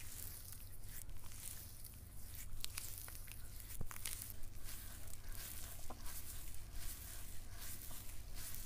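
Hands rubbing and kneading wet scrub paste over bare skin on the shoulders and back, picked up close by a clip-on microphone: irregular soft rubbing with many small clicks.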